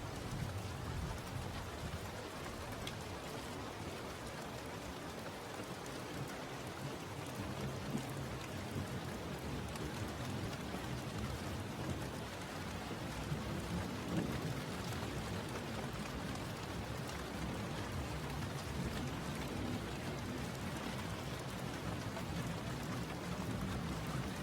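Steady rain falling, with low rumbles of thunder that swell around the middle and again near the end.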